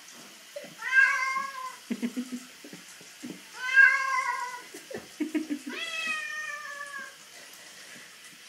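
Calico cat meowing three times while being held and washed in bath water: long, drawn-out meows about a second each, the last one the longest and sliding down in pitch near its end.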